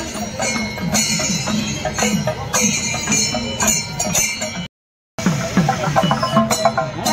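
Rhythmic percussion music with jingling, cymbal-like metal and fast drum strokes. The sound cuts out completely for about half a second two thirds of the way through, then resumes.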